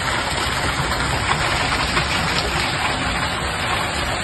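Hailstones pelting down onto an asphalt street: a steady hiss of hail with a few sharper ticks of individual stones striking, over a low rumble.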